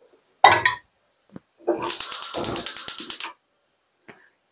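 Gas hob's spark igniter clicking rapidly, about ten clicks a second for about a second and a half, as the burner under the saucepan is lit. A short knock comes about half a second in.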